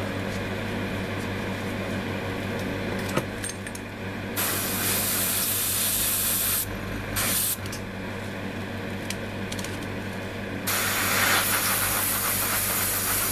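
Airbrush spraying paint in short bursts over a line on a soft-vinyl figure's leg that still shows: a hiss of air about four seconds in lasting two seconds, a brief one just after, and a longer one starting near the end.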